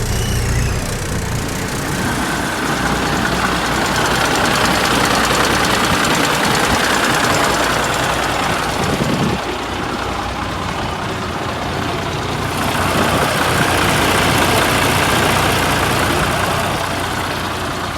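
1998 Western Star concrete mixer truck's diesel engine running steadily. It eases off for a few seconds about halfway through, then picks up again.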